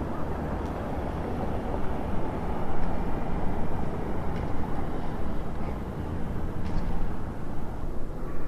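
Town-centre street ambience dominated by a motor vehicle's low engine rumble, swelling louder about two and a half seconds in, with a few faint ticks.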